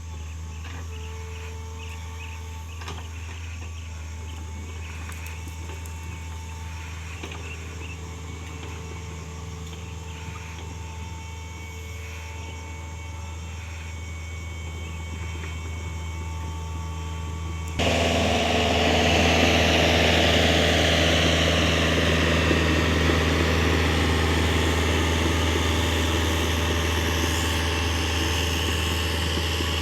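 PC 48 mini excavator's diesel engine running steadily at a low, quiet pace. About eighteen seconds in the sound jumps suddenly to a much louder, fuller running with a wide hiss over it, and stays there.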